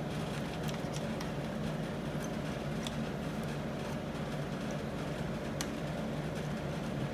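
Steady low hum with a few faint, sharp metallic clicks of a socket tool and bolts being handled at the open clutch housing of a motorcycle engine.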